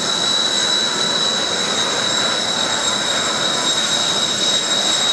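Kawasaki T-4 jet trainers' twin turbofan engines running at low taxi power, a steady high-pitched whine of several held tones over a constant rush of jet noise.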